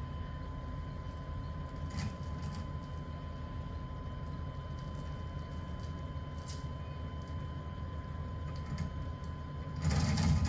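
Steady low rumble of a car on the road, heard from inside the cabin. A few light clicks come about two seconds in, a single sharp click about six and a half seconds in, and a brief rustle near the end.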